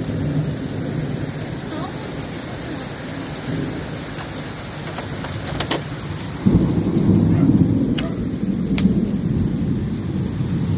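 Steady rain in a thunderstorm; about six and a half seconds in, a deep thunder rumble sets in suddenly and keeps rumbling loudly.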